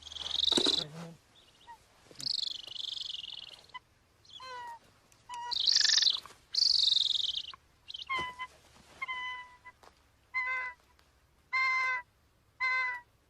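Golden eagle, caught and held in the hand, calling. It gives several shrill, hissy screams in the first half, then a run of short, clear yelps about one every two-thirds of a second.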